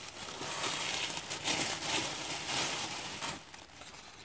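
Thin tissue paper rustling and crinkling as sheets are pulled apart and handled, dying away near the end.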